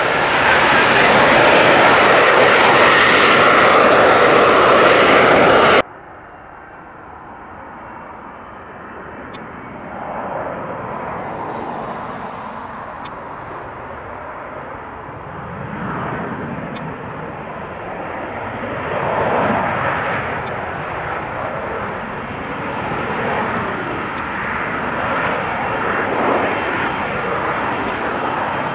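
Jet noise from an F-35B Lightning II's single F135 engine: loud and steady for about six seconds, then a sudden cut to a fainter, more distant jet sound that wavers and slowly grows louder.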